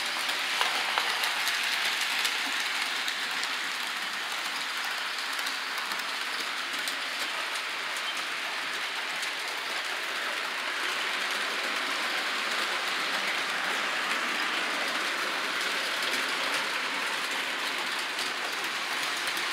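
Model train running along its track: a steady rolling noise from the locomotive's small motor and the wheels on the rails.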